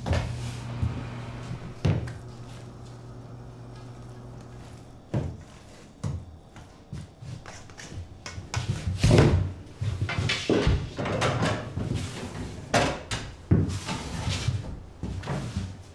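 A stainless-steel cabinet door shutting with a thunk and another knock about two seconds later, over a steady low hum that stops about five seconds in; then a run of irregular knocks and clatter of kitchen work near the end.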